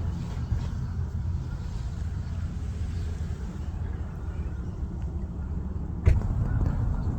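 A low steady rumble, with one sharp knock about six seconds in, after which the rumble is a little louder.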